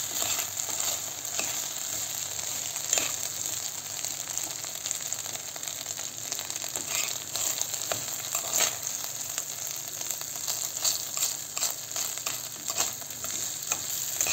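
Rice and vermicelli toasting in butter in a stainless-steel pot, sizzling steadily while a metal spoon stirs and scrapes through it with scattered clinks against the pot: the toasting stage of rice pilaf.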